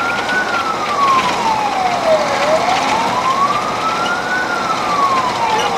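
Fire engine's siren wailing, slowly rising and falling with a full up-and-down cycle about every four seconds, heard from inside the cab over steady road and engine noise.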